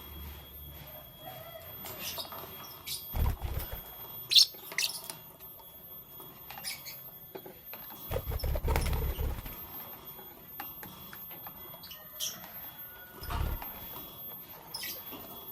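Lovebirds giving scattered short, high chirps, the loudest about four seconds in, with small scratching and pattering sounds between them. Low dull thumps come three times: about three seconds in, for a second or so around the middle, and near the end.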